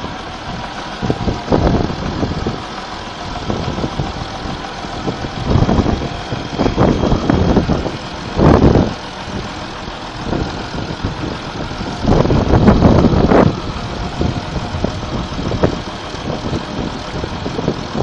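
Belarus 1221 tractor's six-cylinder diesel engine running steadily, with several short louder bursts over it.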